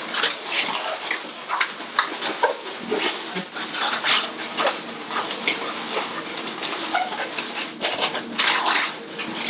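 Latex modelling balloons squeaking and rubbing against each other as they are twisted and squeezed into bubbles: a busy run of short squeaks and rubs.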